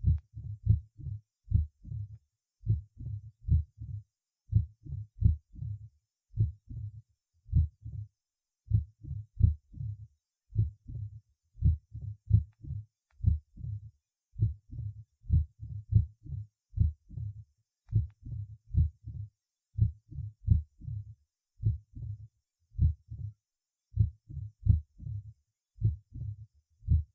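Heart sounds recorded at the cardiac apex of a patient with mitral stenosis and atrial fibrillation. The beats come at irregular intervals, and a diastolic murmur, the sign of the narrowed mitral valve, follows the mitral opening snap.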